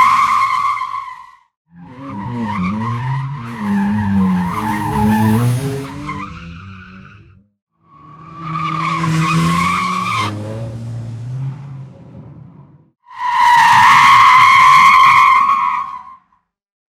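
A run of separate car braking clips, each cut off by a brief silence: tyres squealing with a high, steady screech. In two of them an engine's drone shifts in pitch under the squeal. The last screech, near the end, is among the loudest.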